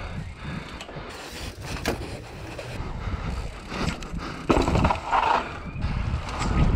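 Mountain bike's freewheel hub ticking as it rolls down a ramp, then heavy thumps and rattling as the bike drops down concrete steps about four and a half seconds in, followed by tyre rumble on pavement.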